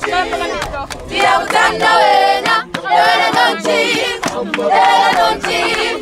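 Background music of voices singing together in a choir-like, a cappella style, holding wavering notes in phrases a second or two long with short breaks between them.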